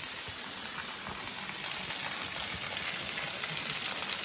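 Waterfall pouring over rock, a steady hiss of falling and splashing water.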